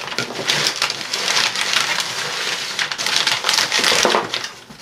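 Hands rummaging through shredded paper packing filler in a cardboard box: continuous rustling.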